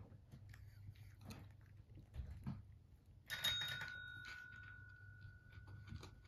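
A cat's paw strikes a desk call bell once about three seconds in, and the bell rings with a clear tone that fades slowly over several seconds. Soft clicks and rustles come before it.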